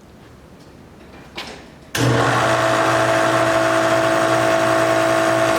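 Old Delta Unisaw table saw switched on about two seconds in and running steadily, a loud hum with a steady whine. It carries bearing noise that the owner takes for a worn arbor bearing rather than the motor bearings.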